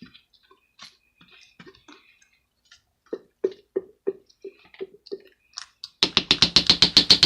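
Plastic glue bottle being squeezed while the glue will not come out: a series of short squeaky air sputters from the nozzle, then near the end a loud fast run of sharp clicks, about ten a second.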